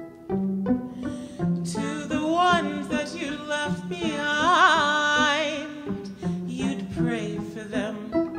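Violin plucked pizzicato in a repeating pattern of short notes. From about two seconds in until about six seconds in, a woman's voice sings long held notes with wide vibrato over it.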